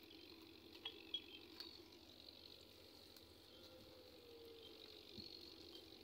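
Near silence: faint outdoor ambience with a few soft, high chirps and a couple of small clicks about a second in.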